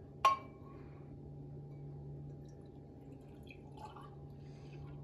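Milk being poured into a small metal pot (cezve): one sharp metallic clink with a short ring about a quarter second in, then faint drips of liquid. A steady low hum runs underneath.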